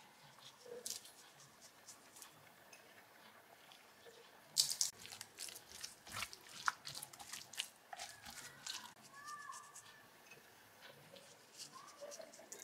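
Hands rubbing spice seasoning into raw chicken halves on a wooden cutting board, making irregular soft wet crackles and squelches. They are busiest from about four and a half to eight seconds in. A few faint high squeaks come about nine seconds in.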